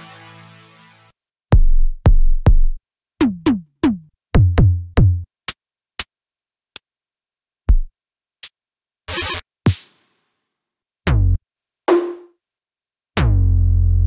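u-he Hive 2 software synthesizer playing drum presets one hit at a time. A sustained chord tail fades out, then comes a string of short kick drums whose pitch drops quickly, a few sharp hi-hat-like clicks and a short noisy hit. Near the end a held low stab starts.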